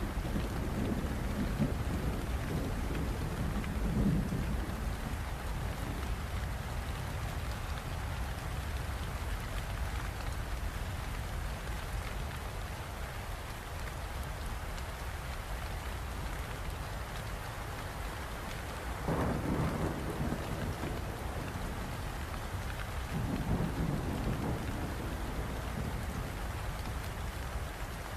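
Steady rain falling, with low rumbles of thunder swelling and fading near the start, about two-thirds of the way in, and again a few seconds after.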